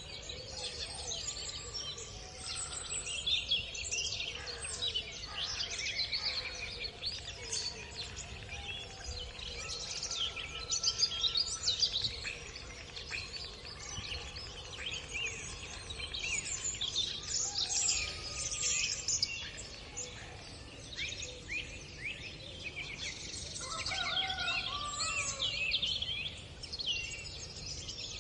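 Many birds chirping and peeping at once: a dense, continuous chatter of short high calls, with a few lower, longer calls near the end.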